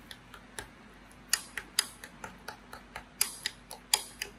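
Metal spoon clinking and scraping against a ceramic bowl while sugar is stirred into mashed muskmelon: irregular sharp clicks, a few a second, louder from about a second in.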